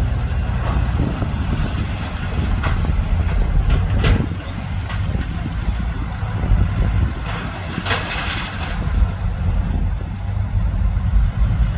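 Heavy diesel earthmoving machinery running with a steady low rumble, with a few short clanks or scrapes, the longest about eight seconds in.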